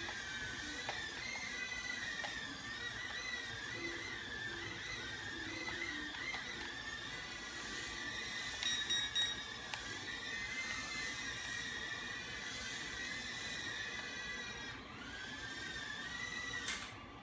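Mini nano quadcopter's tiny motors and propellers whining, the pitch constantly wavering up and down as it hovers and corrects. A few brief taps about halfway through, and the whine cuts off suddenly near the end as it sets down and the motors stop.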